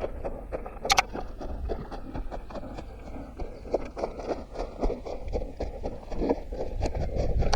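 Footsteps of a runner on forest ground: irregular crackling and rustling steps over a low rumble of wind and movement on a head-mounted microphone, with one sharp click about a second in.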